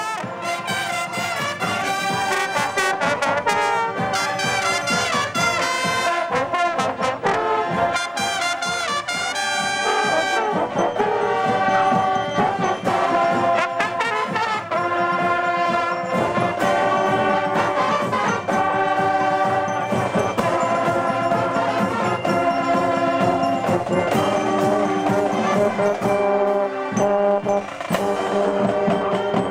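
Marching band brass playing a piece, trumpets and trombones over low tubas, with held notes.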